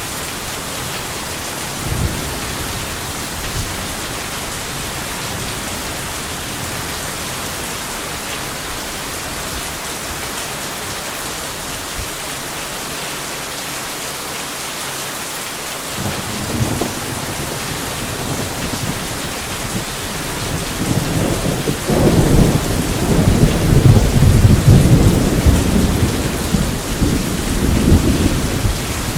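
Steady rain hissing, with a short thump of thunder about two seconds in. From about sixteen seconds a low thunder rumble sets in and builds into a loud rolling peal that eases near the end.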